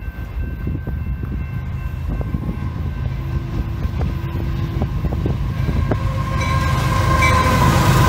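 Union Pacific freight train's diesel locomotives approaching a grade crossing and growing louder, with a horn chord that swells near the end as the lead units arrive. Strong wind buffets the microphone.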